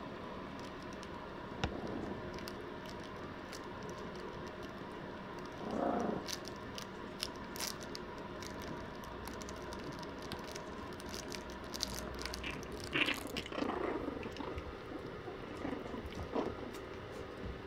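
Yorkshire Terrier puppies, about five weeks old, playing and chewing on plush toys: soft scuffling, mouthing and small growls, with a couple of short louder sounds about six and thirteen seconds in.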